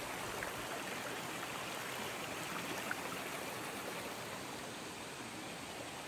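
Shallow rocky river running over stones: a steady babble of water.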